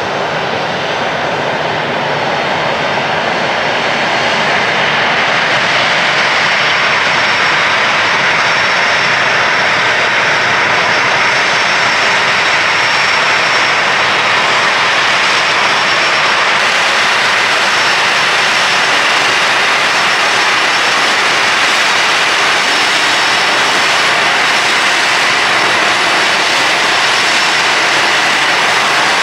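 Boeing 737-500's CFM56-3 jet engines running as the airliner taxis in to its stand: a loud, steady jet roar with a faint high whine, growing a little louder about four seconds in as the aircraft turns toward the listener.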